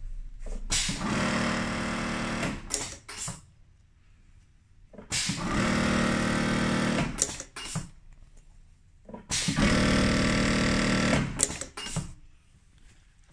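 Strobel blindstitch hemming machine sewing a hem in three short runs of about two and a half seconds each, its stitching mechanism running fast and even. A couple of sharp clicks follow each run.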